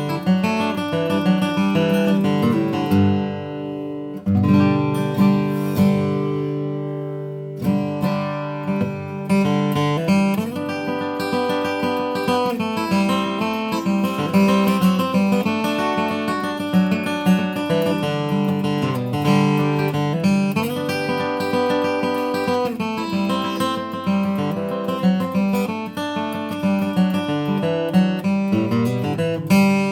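Sigma SDR-28MLE dreadnought acoustic guitar, with a solid Adirondack spruce top and Madagascar rosewood back and sides, played solo in a run of picked notes and strummed chords. A chord is left ringing about three seconds in, and again about six seconds in, before the playing picks up again.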